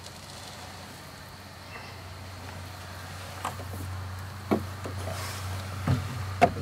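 Steady low hum with a few sharp knocks and clatter in the second half, coming more often toward the end, as things are handled inside a hunting blind.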